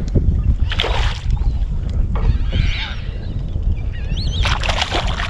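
Several short splashes as a hooked redfish thrashes at the surface beside a kayak, over a steady rumble of wind on the microphone, with short wavering bird calls near the end.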